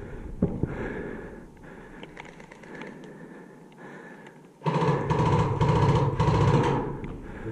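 Electric airsoft rifle firing a long full-automatic burst of about three seconds: a loud, fast buzzing chatter of its motor and gearbox that starts suddenly just past the middle. Before it there is quieter handling noise with a single knock.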